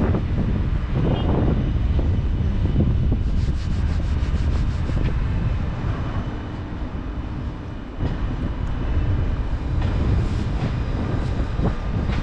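Ouigo double-deck TGV high-speed train slowly pulling out of the station, a steady low rumble with a run of faint ticks a few seconds in.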